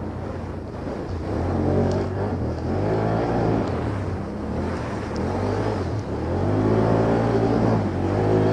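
ATV (quad bike) engine running under load, revving up and easing off twice as it pulls through the course.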